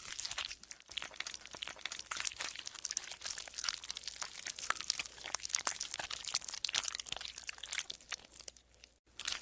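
Golden slime being squeezed and kneaded by hand, giving a dense run of small crackling pops and squelches that eases off briefly near the end.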